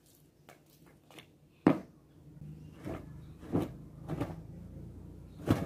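Wet laundry being handled for hanging: a sharp knock about two seconds in, which matches the basin being set down on the concrete, then several sharp snaps as a wet garment is shaken out, the last near the end and loud. A faint low hum runs under it from about halfway.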